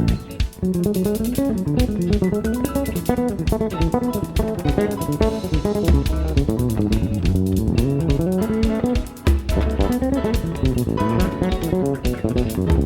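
Background music: guitar with bass and a light drum beat.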